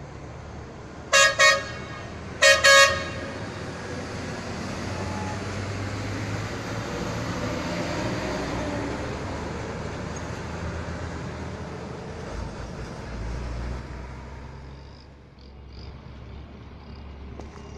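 A vehicle horn sounds four short blasts in two quick pairs, starting about a second in. Then the diesel engines and tyres of heavy tanker trucks driving past rise to a peak about halfway and fade away.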